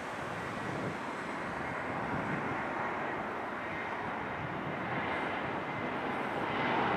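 Airbus A320 airliner on landing approach: a steady jet rush that grows louder as it nears, with a faint high engine whine coming in over the second half.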